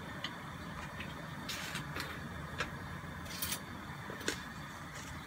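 Steady low hum with a few light clicks and taps, one at around two seconds in and others around two and a half, three and a half and four seconds in.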